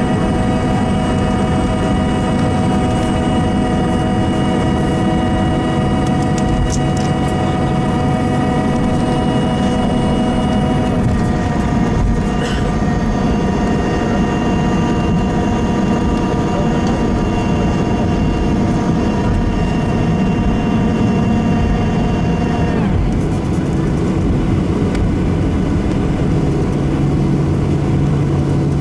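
Cabin noise of a Boeing 737-800 taxiing after landing: a steady rumble under the whine of its CFM56 engines at taxi thrust. About 11 seconds in some of the whine tones shift, a short knock comes a second later, and about 23 seconds in the whine drops in pitch.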